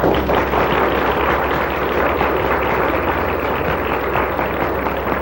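Audience applauding steadily, a dense patter of many hands clapping at the close of a lecture.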